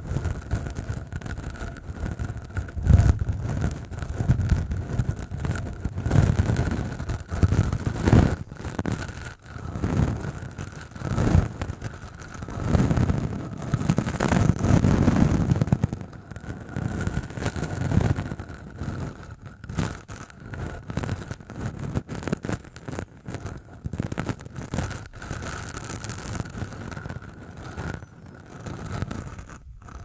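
Short, rough beard stubble rubbed and scratched directly against the two microphone capsules of a handheld Tascam recorder: a continuous raspy scraping in irregular strokes, with deep rumbling from the contact and handling.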